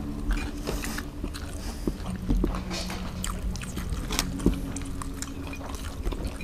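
Eating at a meal: chewing and biting, with scattered small clicks of hands and cutlery on plates over a faint low steady hum.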